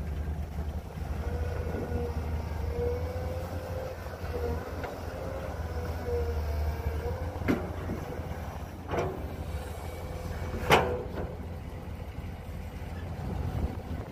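Excavator and dump truck diesel engines running with a steady low rumble and a wavering whine, with three sharp knocks in the second half, the last the loudest.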